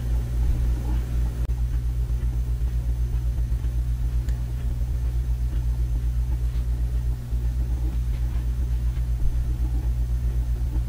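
Steady low hum with a rumble, unchanging throughout.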